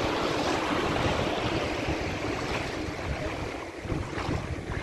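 Small waves breaking and washing up the sand in a steady hiss of surf, with wind buffeting the microphone.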